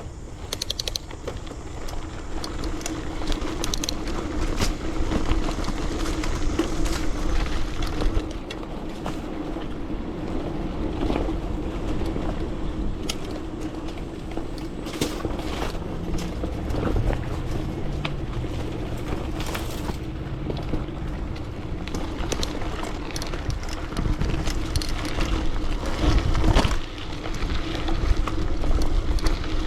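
A bike ridden along a rough trail: a steady rolling rumble and hum, with frequent short rattles and knocks as it goes over bumps.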